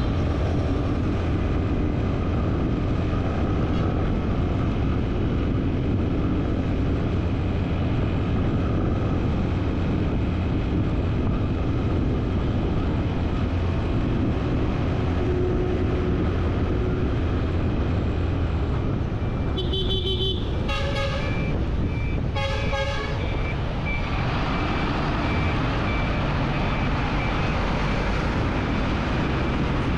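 Steady rumble and wind noise of a road vehicle in motion. Two vehicle horn honks come about two-thirds of the way through, a longer one then a shorter one.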